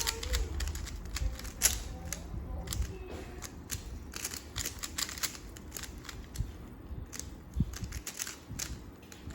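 Rubik's cubes being turned fast by hand, the plastic layers clicking and clattering in quick, irregular runs.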